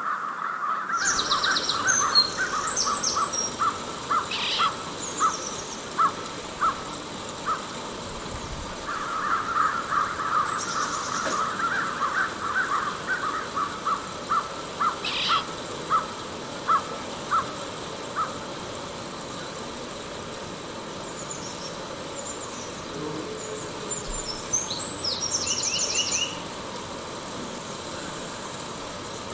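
Wild birds calling: one bird gives long runs of quick repeated calls that thin out into single spaced notes and stop about eighteen seconds in. Other birds chirp higher at intervals, busiest a few seconds before the end.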